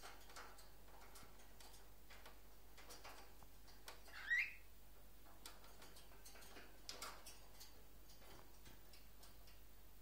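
Cockatiels on a wire cage: faint, scattered ticks and clicks of beaks and claws on the wire, with one short rising chirp a little over four seconds in.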